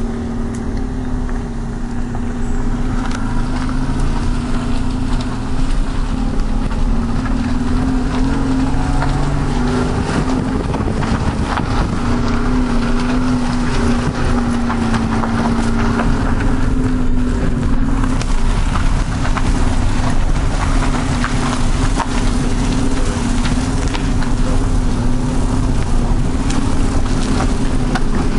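Steady running rumble heard from inside a moving vehicle, with a low wavering hum under it.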